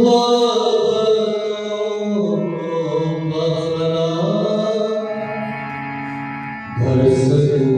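A man singing a slow, drawn-out devotional melody over the steady held chords of a harmonium, growing louder about seven seconds in.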